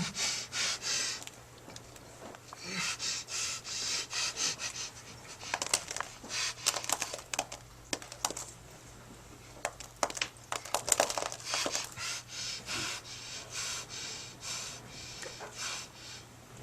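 A person panting and gasping in a long series of short, heavy breaths, with a run of sharp clicks and knocks in the middle.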